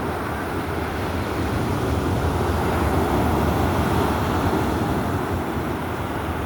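Stormy sea: a steady, dense rush of rough surf, with a low rumble of wind on the microphone.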